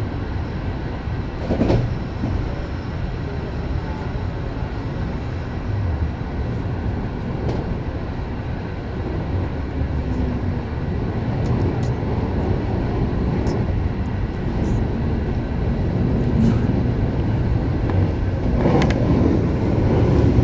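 MI09 RER A electric train running between stations, heard from on board: a steady low rumble of wheels and running gear that grows slowly louder, with a few brief knocks, the loudest near the end.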